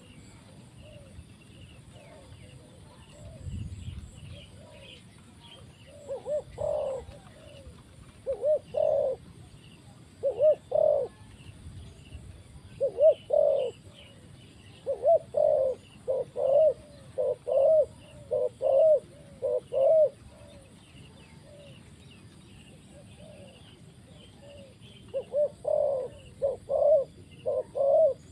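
Spotted dove cooing: loud, repeated low coo phrases in runs, starting about six seconds in, pausing for a few seconds, then resuming near the end. Faint chirping of other small birds sits behind it.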